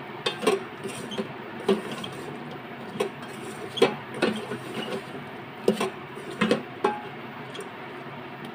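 Wooden spatula stirring sliced okra and onions in a rice cooker's metal pot, scraping and knocking against the pot at irregular intervals over a steady low hiss.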